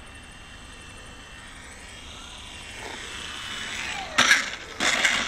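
Small electric radio-controlled plane's motor whining, growing louder and dropping in pitch as it comes in low over the road. Then several short, rough scraping bursts as it touches down and rolls on the asphalt.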